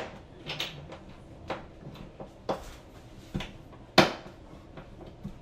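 Irregular knocks and clicks of a screw and screwdriver against a towel bar and wall anchor as the screws are started by hand, with a sharp knock right at the start and another about four seconds in.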